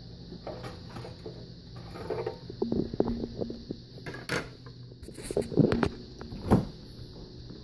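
Kitchen handling noises: a run of knocks, clanks and rustles as pots, plates and a cupboard are moved about, with the loudest knocks about four, five and a half and six and a half seconds in, over a steady faint hum.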